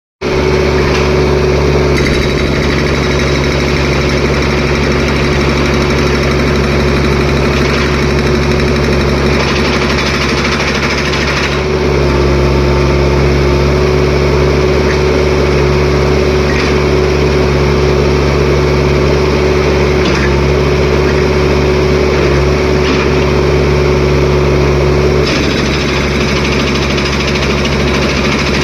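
Jackhammer breaking up a road surface, running continuously with a steady machine hum underneath; the sound shifts in strength a few times.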